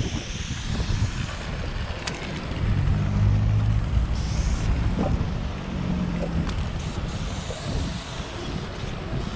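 Wind rumbling on the microphone over a vehicle's engine hum, which swells for a few seconds near the middle. A few sharp clicks.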